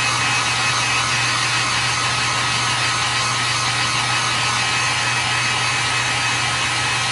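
Electric heat gun running steadily: an even rush of blown air over a low motor hum, as it is swept across an HDPE helmet shell to heat-resurface the plastic.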